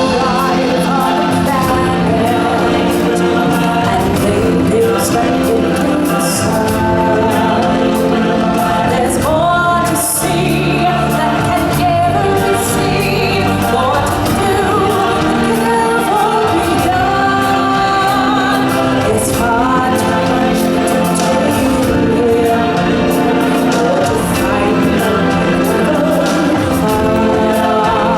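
A live stage-show song with a choir of voices singing over band accompaniment, loud and continuous.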